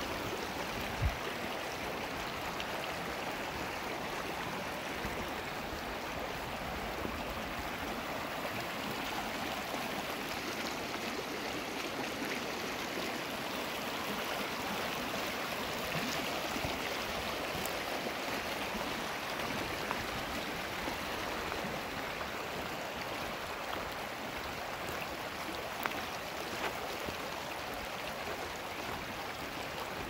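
Shallow creek rushing steadily over a gravel and rock bed, with a few brief faint knocks.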